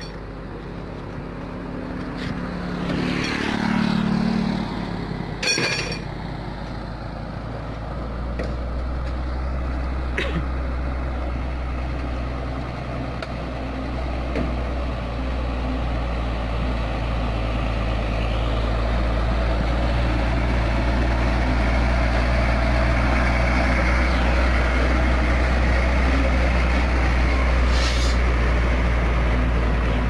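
Concrete mixer truck's diesel engine running as it drives toward and past on an unpaved road, a steady deep rumble that grows louder as it comes close near the end. In the first few seconds a lighter vehicle, likely a motorbike, goes by with a falling pitch, and there is a brief sharp noise about five seconds in.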